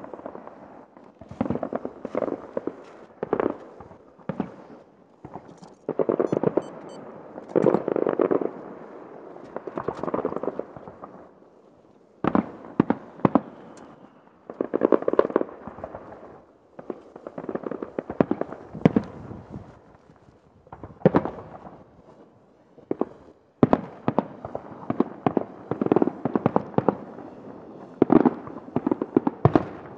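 Aerial fireworks going off in close volleys: sharp bangs and crackles, each trailing off in a rolling echo, with brief lulls between salvos.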